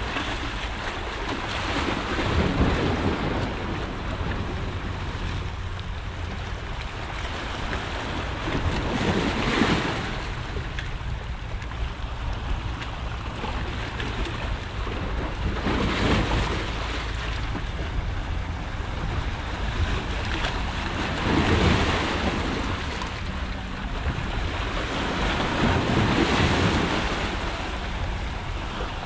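Small sea waves washing and breaking against shoreline rocks, swelling to a louder wash about every five or six seconds, over a steady low rumble of wind on the microphone.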